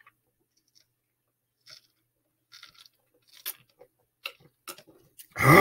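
A person gulping down a drink in one long chug: a string of short, quiet swallowing sounds at uneven intervals. Right at the end a loud burp begins.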